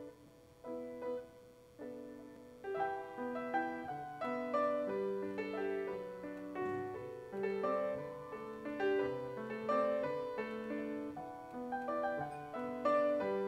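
Grand piano played solo as a song's introduction: spaced chords at first, then about three seconds in a steady, flowing accompaniment of running notes.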